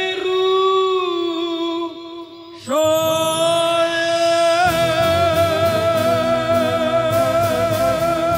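A rabbi singing a Hebrew chant into a microphone in long, held notes, with a short break about two and a half seconds in. A musical backing with a beat comes in about halfway through.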